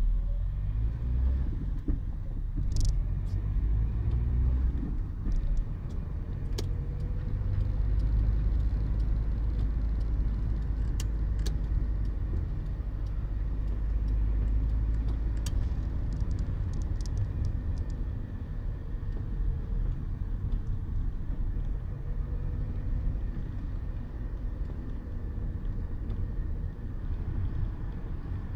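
Interior sound of a Citroën BX 14 RE being driven: its small four-cylinder petrol engine running under a steady low road rumble, with the engine note rising and falling gently with speed. Occasional sharp ticks sound over it.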